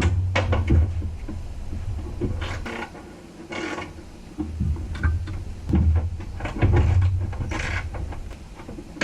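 Hand-tool and handling noises while a car's hood is being unbolted: scattered clicks, knocks and brief rustling, over repeated low rumbling swells of close handling noise.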